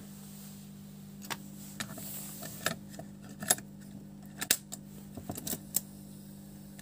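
Irregular plastic and metal clicks and clacks as a cassette is pushed into the carriage of an old cassette-deck mechanism and handled, about a dozen sharp clicks spread over several seconds. A steady low electrical hum runs underneath.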